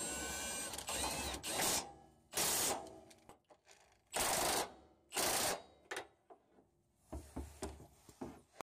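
Socket on an extension driving the fuel tank strap bolt on a 2005 Nissan Xterra. It runs for about a second and a half, then comes in three short bursts, with softer clicks near the end.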